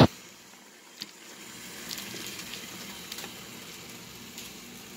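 Steel pot of water boiling on the stove, a steady bubbling hiss. It opens with a brief splash as broccoli, cauliflower and carrot pieces tip in from a plate, followed by a few small clicks and knocks as they are pushed down into the water.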